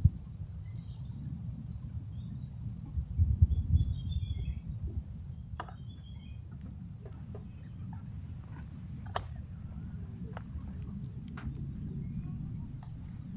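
Birds chirping high and briefly in the background over a steady low rumble, with a few sharp clicks about five and nine seconds in.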